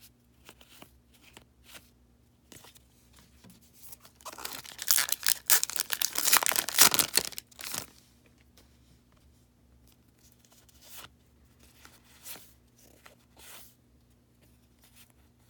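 Foil baseball card pack wrapper being torn open and crinkled for about three and a half seconds, a dense crackling, between quieter soft rustles and ticks of cards being handled.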